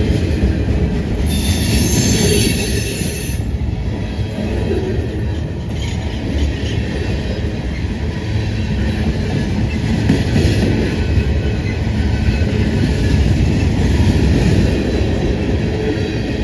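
Freight train cars rolling past: a steady, loud low rumble of steel wheels on rail with clatter. A high-pitched wheel squeal starts about a second in and lasts about two seconds.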